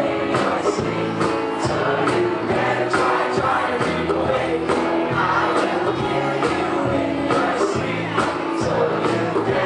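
Live rock band playing with a steady drum beat, with voices singing along.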